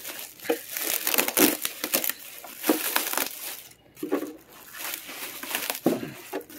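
Clear plastic wrapping crinkling in irregular crackles as hands pull it off a heavy machine, with a brief lull a little under four seconds in.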